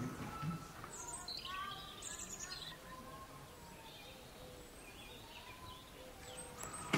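Faint high chirping and twittering calls, a cluster of them about a second in and more near the end, over a low hum of enclosure noise.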